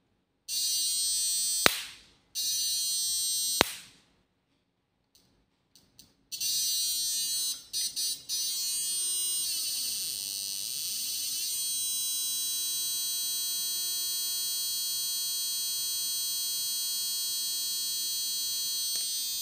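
A 6-FET electric fishing inverter giving a high-pitched electronic whine. It comes first in two short bursts, each ending in a sharp snap as the output cuts out, which fits its short-circuit protection tripping. Then comes a long steady whine whose pitch dips and climbs back once, about ten seconds in.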